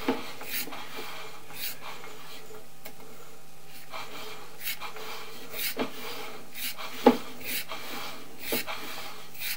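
Sewer inspection camera being pushed along a sewer line: irregular clicks and knocks of the push cable and camera head, the sharpest about seven seconds in, over a steady low hum.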